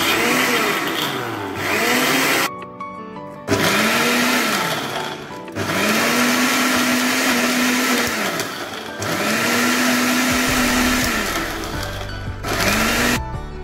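Electric mixer grinder blending wet coconut chutney in its small jar, run in about six pulses. Each time the motor whine climbs as it spins up and drops as it is let go, with short pauses between runs.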